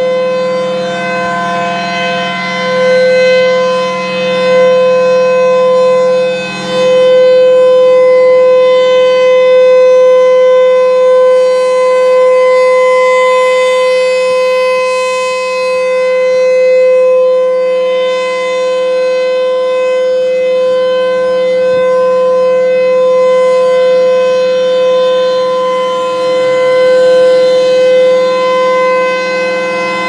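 Federal Signal Thunderbolt 1000 rotating outdoor warning siren sounding a steady single-pitch tone during a test, its loudness swelling and fading as the horn turns.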